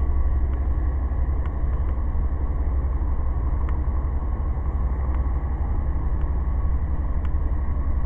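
Ram van's engine idling, a steady low rumble heard from inside the cab, with a few faint irregular ticks over it.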